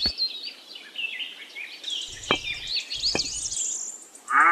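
Small birds chirping and twittering, broken by two sharp clicks about two and three seconds in. A cow begins a long moo right at the end.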